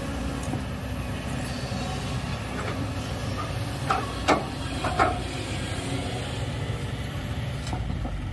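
Diesel engines of a Kobelco SK200 hydraulic excavator and a dump truck running steadily as the excavator digs into sand and rock. Three sharp clanks of the bucket striking stone come about four to five seconds in.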